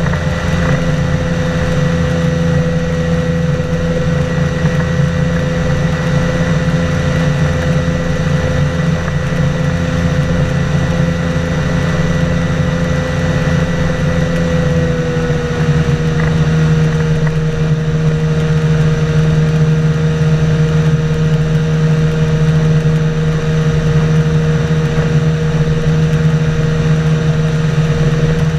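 A boat's engine running steadily. About halfway through its pitch drops slightly and it gets a little louder.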